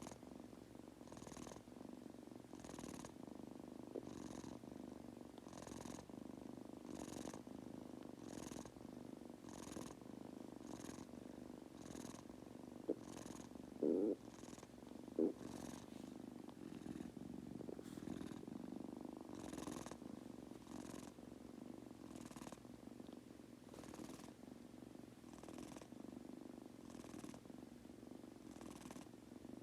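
Munchkin kitten purring steadily as it falls asleep, with a breathy rasp on each breath about every second and a half. Three brief louder sounds come about halfway through.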